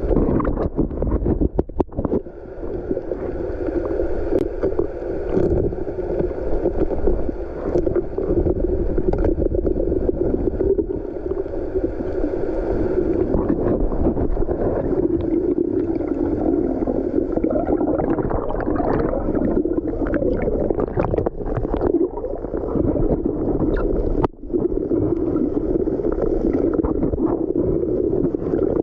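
Muffled underwater noise from a camera in its waterproof housing: a steady low rush of water with faint steady hum bands and scattered clicks and knocks.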